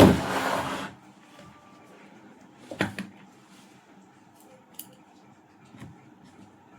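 Workbench handling noises while an amplifier unit is reassembled: a loud scraping rustle in the first second, then a sharp double click or knock about three seconds in and a few faint clicks after.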